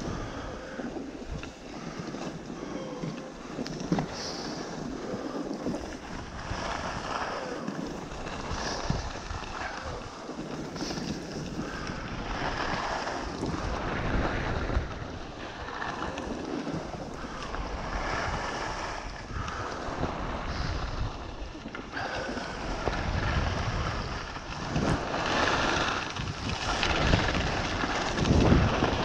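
Wind buffeting the microphone and skis hissing over snow during a downhill ski run. The noise swells and eases every second or two and is loudest near the end.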